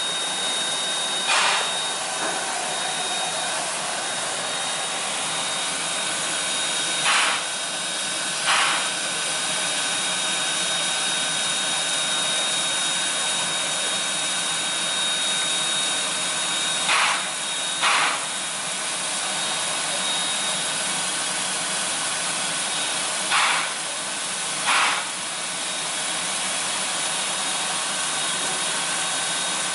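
C10 steam tank locomotive standing with steam up, hissing steadily, with short louder puffs of steam, mostly in pairs about a second apart, every six to nine seconds.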